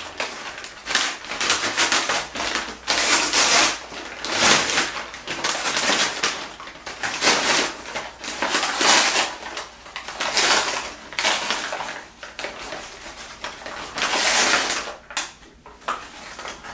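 Brown kraft paper crinkling and rustling in irregular bursts as it is pulled open and unwrapped from around a potted plant.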